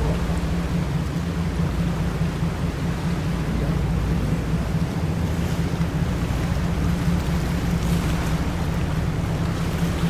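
A sightseeing boat's engine running at a steady low hum as it moves through the water, with the wash of water against the hull.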